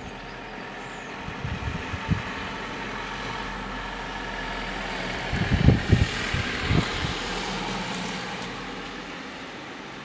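Background noise of a passing road vehicle, swelling to a peak about six seconds in and fading again, with a few short low thumps, the loudest near its peak.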